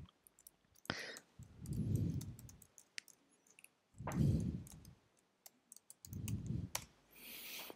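Faint clicks of a computer keyboard and mouse as an address is typed, with three soft low swells of sound about two seconds apart.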